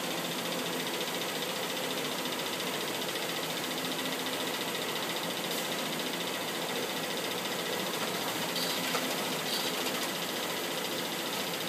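Konica Minolta bizhub PRO C65hc production copier running a duplex print job: a steady mechanical whir of its motors, fans and paper-feed rollers, with a few faint clicks in the second half.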